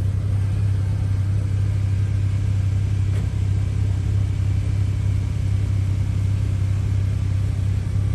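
Car engines idling nearby, a steady low rumble that holds even throughout.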